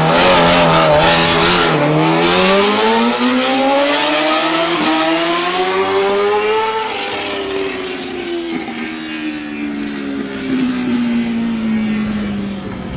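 Kawasaki ZX-RR MotoGP race bike's 800 cc inline-four engine. It is blipped unevenly at first, then pulls away with the pitch climbing steadily for about five seconds. From there the pitch falls steadily and the sound grows quieter as the bike slows and draws away.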